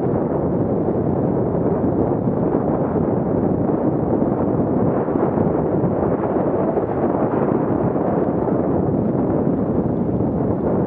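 Steady rushing, rumbling noise of a fat bike riding at about 24 km/h on a groomed snow trail: wind buffeting the bike-mounted Garmin VIRB action camera's microphone, mixed with the wide tyres rolling over packed snow.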